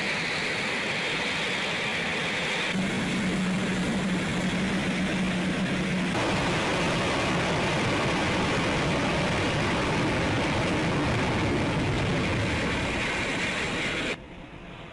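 Jet engine roar from the Black Eagles' T-50B aerobatic jets, a loud steady rushing noise. It changes abruptly a few times, about three, six and fourteen seconds in, where the footage is cut.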